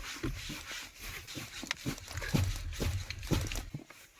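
A man grunting with effort in short bursts while unscrewing a tight stock gear knob from the shift lever by hand, with rubbing and handling noise from the knob.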